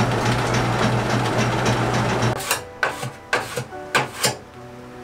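Old belt-driven workshop machine with a spinning flywheel and gears running with a steady hum and rattle, cutting off about two and a half seconds in. Several sharp knocks and scrapes follow as brown powdery material is worked in its metal hopper.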